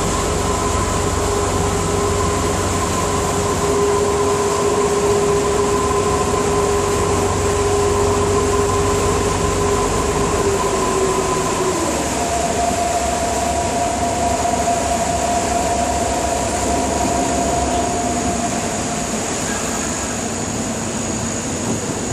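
Water taxi's engine running steadily under way, with water rushing past the hull; the engine's tone steps up in pitch about halfway through.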